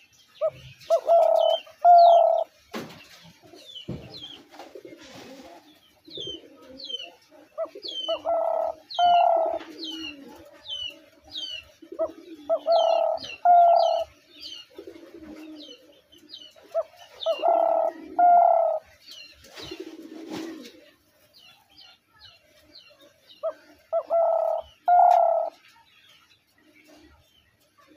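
Spotted dove cooing: five two-note coo phrases, a few seconds apart. Small birds chirp in quick high notes throughout.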